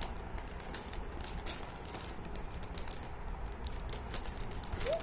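Inner foil liner bag of a cereal box crinkling and clicking in irregular sharp crackles as it is handled and cut open.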